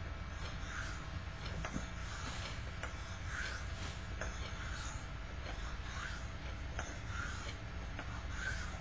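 Straight razor stroked back and forth on a honing stone: soft, even scraping strokes about once a second, with faint clicks between some of them.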